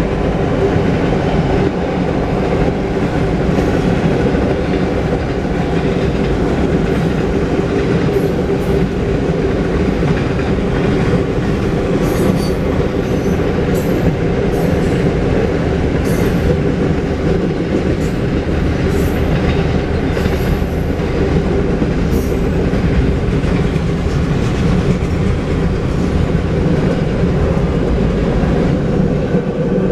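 Freight cars of a mixed freight train rolling steadily past: a continuous heavy rumble of wheels on rail. Brief high-pitched squeals from the wheels come several times around the middle.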